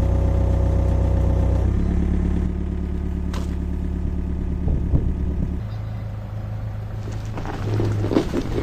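Takeuchi excavator's diesel engine running steadily, its pitch stepping down sharply twice, with some metal clanking near the end.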